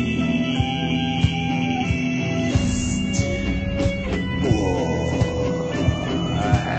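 Instrumental passage of a rock song: guitar over a steady drum beat, with sliding, swooping tones about two-thirds of the way through.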